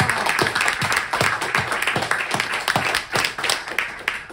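Audience applauding, with one pair of hands clapping close by in a steady beat of about three claps a second; the applause fades toward the end.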